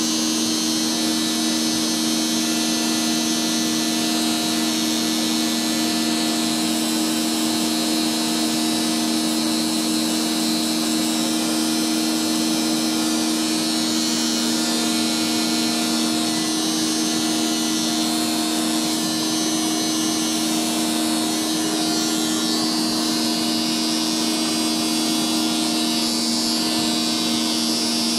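Vacuum cleaner running with a Flowbee haircutting attachment on its hose: a steady electric motor hum with airy suction hiss over it, unchanging throughout.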